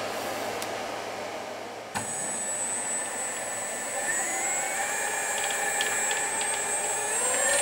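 Brushless outer-rotor motor driving a mini lathe: after a steady hiss, a click about two seconds in, then a high electronic whine and motor tones that rise in pitch as the motor speeds up, around four seconds in and again near the end.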